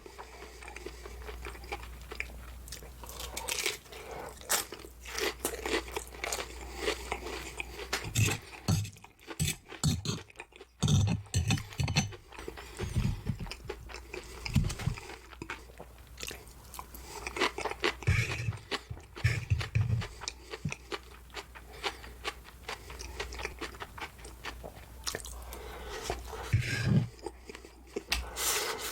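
Close-up eating sounds: a person biting and chewing crisp, breaded fried pork cutlet, with irregular crunches and wet chewing throughout and short low mouth thuds now and then.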